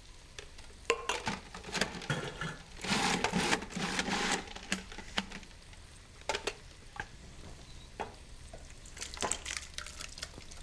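Canned whole tomatoes plopping wetly into a plastic food-processor bowl, with clicks and knocks as the bowl is handled. A louder noisy stretch comes about three seconds in and lasts over a second. Near the end the chopped tomatoes are tipped from the bowl into a glass jug.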